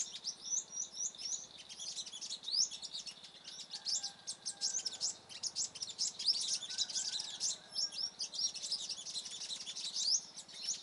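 Sunbirds calling excitedly, a dense run of sharp, high chirps and short rising notes in quick succession. A faint, steady, lower whistle comes in twice in the middle.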